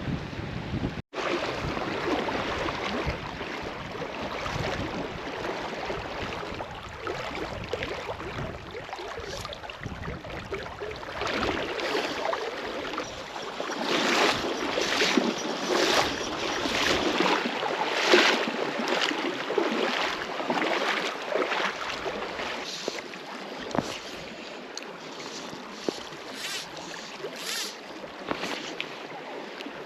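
Wind buffeting the microphone over moving river water, with irregular sloshing and splashing, loudest in the middle and later part, as of someone wading through the current.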